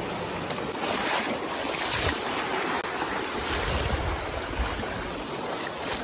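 Steady rush of a fast, shallow, rocky stream, with wind buffeting the microphone as a low rumble near the middle.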